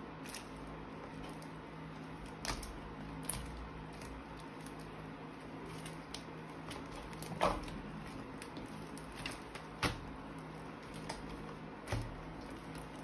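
Sticky jiggly slime being pressed, kneaded and pulled by hand, giving several short squelches and pops spread through, over a steady low hum.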